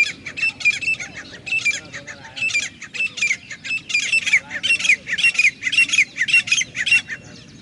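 Grey francolin calling: a long run of loud, high, repeated notes, about three a second, each slurring downward, that stops about seven seconds in.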